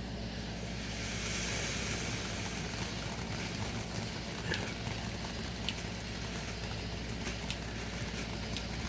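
Consumer ground firework hissing and sizzling, swelling about a second in, with a few scattered sharp crackles.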